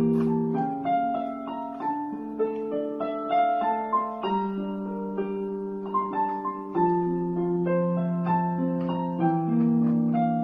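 Electronic keyboard played in a piano voice with both hands: a slow melody over held low chords, the notes ringing on as they change.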